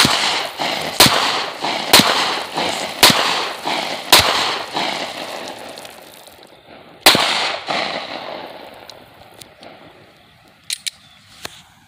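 9mm semi-automatic pistol fired six times: five shots about a second apart, then one more after a pause of about three seconds, each shot followed by a long echo dying away. A few faint clicks near the end.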